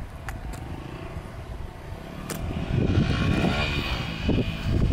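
Dirt bike engine running at a distance, growing louder from about halfway in, its pitch rising and falling as the rider works the throttle.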